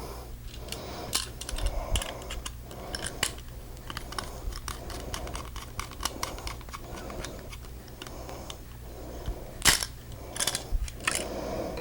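Small clicks and taps of an electrical wire, a plastic wall switch and hand tools such as pliers and a screwdriver being handled, with a louder cluster of clicks near the end.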